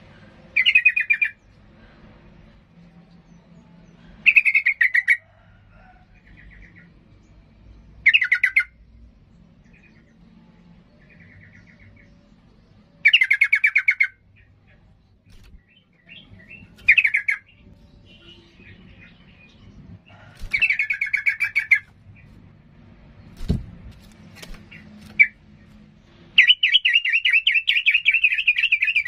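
Caged yellow-vented bulbul (trucukan) singing. Short, rich, bubbling phrases come every few seconds, then a longer rapid trill near the end. The keeper presents the bird as worked up and in full song, ready to fight. A single thump comes about three-quarters of the way through.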